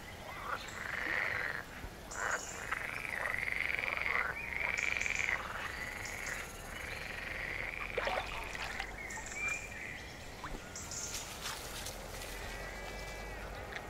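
Frogs calling in a chorus: repeated, overlapping croaking calls that rise and fall, with a few thinner, higher chirps near the end.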